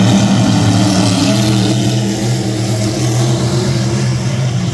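A pack of vintage-class dirt-track race cars running together at speed, several engines droning at once at a fairly steady pitch.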